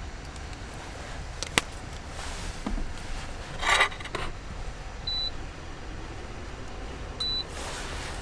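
Two short, high electronic beeps about two seconds apart, over a steady low rumble. A sharp click comes early, and a brief, loud rustling clatter comes near the middle.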